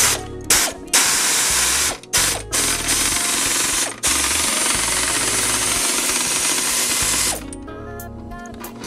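A pneumatic workshop tool running in three long bursts, a loud hiss with a fast rattle, while exhaust fasteners are being loosened, over background music.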